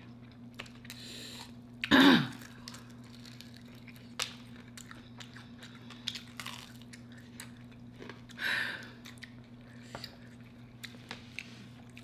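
Close-up chewing and crunching of fried chicken, with small scattered mouth clicks. About two seconds in comes a short voiced sound that falls in pitch, and later a brief breathy exhale.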